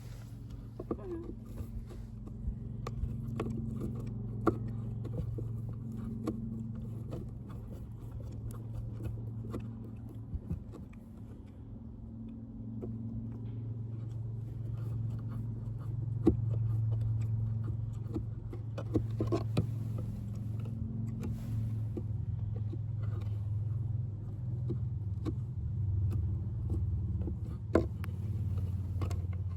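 Steady low rumble of a running vehicle engine that swells and eases, with scattered small clicks and knocks throughout.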